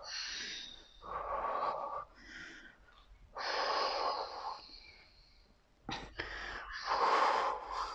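A woman breathing hard through her mouth while doing leg raises: about five long, noisy breaths in and out, each a second or so, with short pauses between them.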